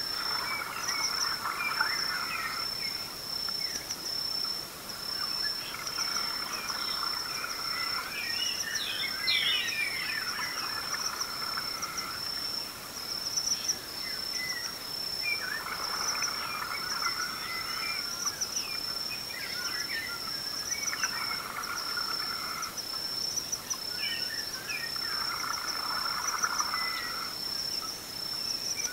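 Dawn chorus: a steady high insect trill pulsing throughout, with birds calling over it, one repeating a phrase of about two seconds every four to five seconds.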